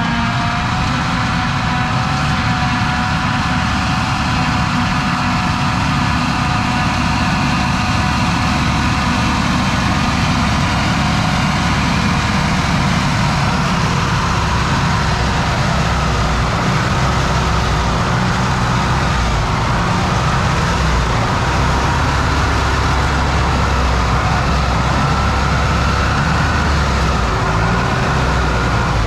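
Tatra 148 truck's air-cooled V8 diesel engine running steadily, its pitch stepping up slightly about half a second in and then wandering a little.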